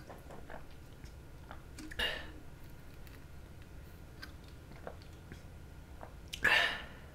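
A person drinking flavoured milk from a plastic bottle, with small swallowing and mouth clicks. There are two breaths, a short one about two seconds in and a louder, longer one near the end.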